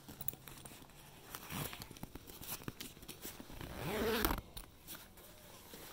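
Rustling and clicking as a handheld phone is moved around, with a brief rising vocal sound about four seconds in.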